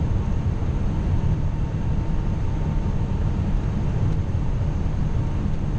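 Steady flight-deck noise of an Airbus A340-600 on short final approach: a low rumble of airflow and engines with an even hiss above it and a faint steady tone.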